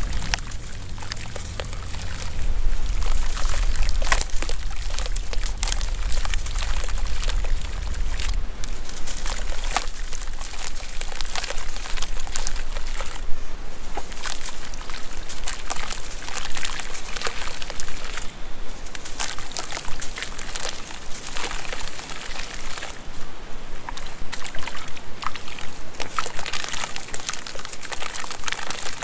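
Dry clay chunks crumbled and squeezed by hand into a tub of water: a steady run of gritty crumbling and crackling, with water sloshing and dribbling as powder and pieces fall in. A low rumble sits under the first eight seconds or so.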